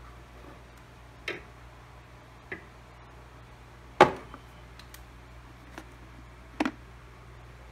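Small metal CV joint parts knocking and clinking against the workbench as they are handled: five separate knocks, the loudest about four seconds in with a brief ring after it. A faint steady hum runs underneath.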